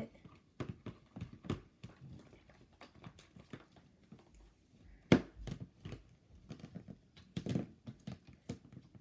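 Glue slime being mixed after activator has been added: a run of small, irregular clicks, with one sharp knock about five seconds in.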